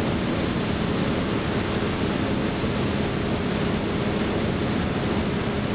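Samp BM 630 D double twist bunching machine running: a steady, even rushing noise over a low, constant hum.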